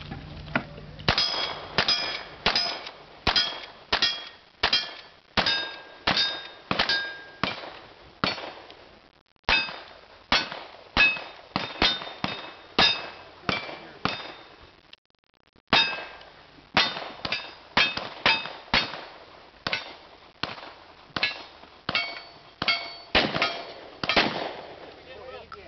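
Cowboy action shooting stage: a rapid string of gunshots, each followed by the ringing clang of a struck steel target, about one or two a second, with two short pauses about nine and fifteen seconds in.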